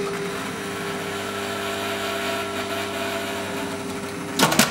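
RTI U-matic tape-cleaning machine running, winding the videotape past its cleaning tissue with a steady motor hum of several held tones. A few loud clicks come just before the end.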